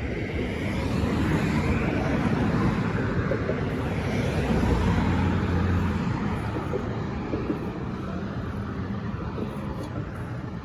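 Rushing road-traffic noise: a vehicle passing, swelling over the first few seconds and fading after about six seconds.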